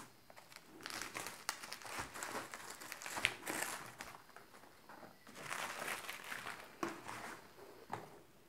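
Plastic bubble wrap crinkling and rustling as hands pull it off a boxed lens, in irregular bursts with a few sharp clicks.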